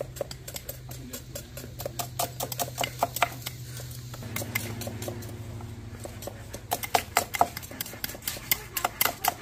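Green mussel shells clicking and clinking in quick, irregular taps as they are scraped and knocked with knives, over a low steady hum.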